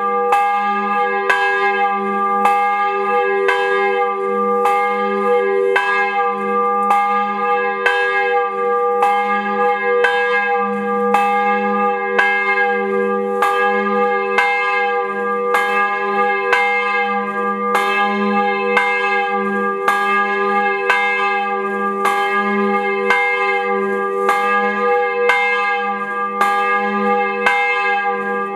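Church bell struck over and over at an even pace, about two strokes a second, each stroke ringing on into the next.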